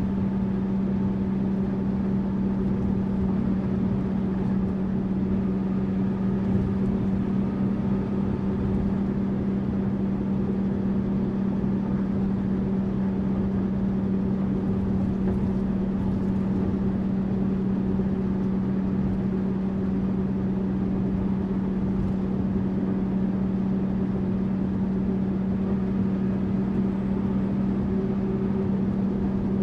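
Tourist bus engine and road noise: a steady, unchanging low hum with a constant noise bed underneath.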